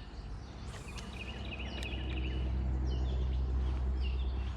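Small birds chirping repeatedly over outdoor ambience at a lake. A low, steady hum swells in under them from about a second in and drops away near the end.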